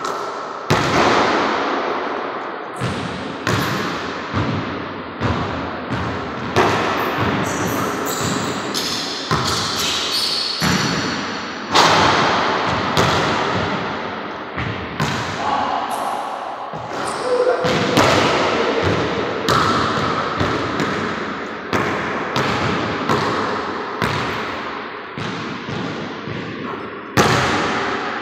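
A basketball repeatedly bouncing on a hardwood gym floor and banging off the backboard, a series of sharp thuds every second or so, each echoing through the large empty gym.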